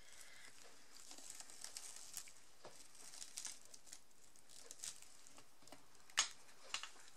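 Faint rustling and light taps of hands handling a paper greeting card on a cutting mat, with a sharper tap about six seconds in.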